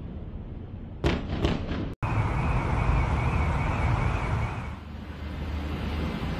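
A few heavy booms about a second in, over a steady low outdoor rumble: distant air-strike blasts over the city. The sound cuts suddenly, then comes a low rumble with a wavering high tone, then steady traffic-like noise.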